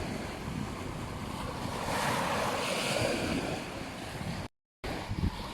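Ocean surf washing on a beach, swelling and easing, with wind buffeting the microphone. The sound cuts out completely for a split second near the end, then returns.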